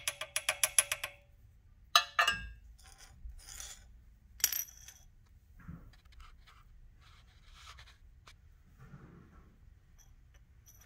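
A quick run of small metallic clicks, then sharp metal clinks about two seconds in and again halfway through as freshly cut car key blades are handled and set down on a hard surface, followed by faint handling.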